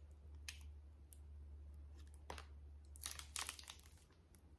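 Faint crinkling of a foil candy-bar wrapper handled in the fingers: a few scattered crackles, with a quick cluster about three seconds in.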